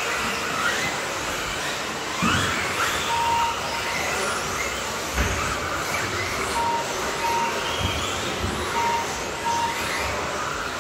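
Several radio-controlled racing buggies running on an indoor track, their electric motors whining and rising in pitch again and again as they accelerate, with a few low thuds as they land off the jumps. Short beeps at one steady pitch come every second or so from about three seconds in, typical of a lap-counting system as cars cross the timing line.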